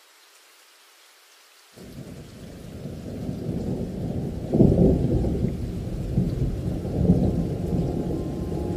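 Near silence, then a bit under two seconds in a muffled rumble of rain and thunder comes in and builds, with thunder swelling about halfway through and again near the end.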